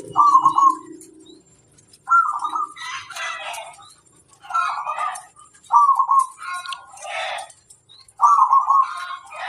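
Zebra dove (perkutut) cooing in five short phrases of low pitched notes, with rougher chirping bursts between the phrases. A low steady tone fades out in the first second and a half.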